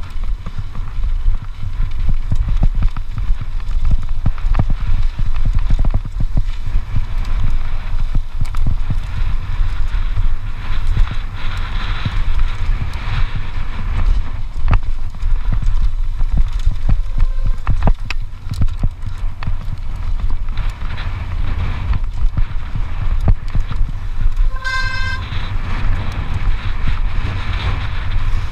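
Wind buffeting an action camera's microphone over the rattle and clatter of a cross-country mountain bike ridden fast on a rough, dry dirt trail. Near the end, a short beep sounds once.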